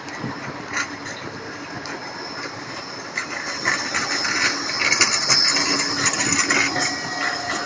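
Blackpool Bombardier Flexity 2 tram running past close by on street rails, getting louder from about three seconds in and loudest around five to six seconds, with a high whine over the rail noise.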